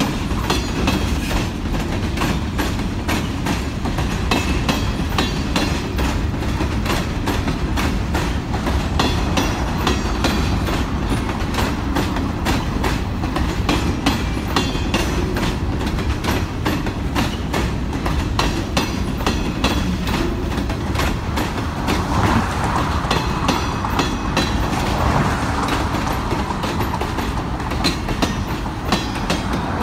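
Freight hopper cars rolling across a wooden pile trestle: a steady clickety-clack of steel wheels over the rail joints, with brief high squeals from the wheels now and then.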